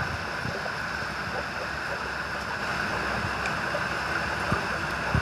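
Steady, even rushing hiss of background noise, with a couple of faint light taps near the end as a perforated plastic bottle is handled.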